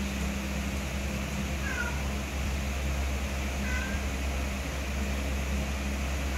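A cat meowing in two short, high calls, about two seconds apart, over a steady low hum.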